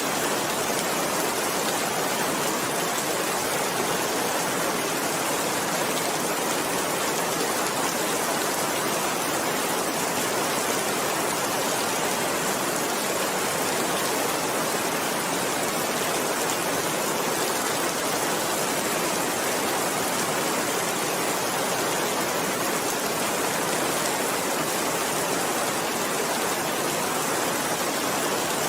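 Steady rainfall: an even, unbroken hiss of rain with no thunder or other events.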